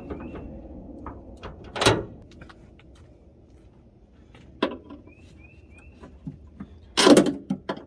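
Sharp metal clicks and clunks from gas hood struts being handled and their socket ends pushed onto ball-stud mounts. There are a few separate knocks, the loudest and longest near the end.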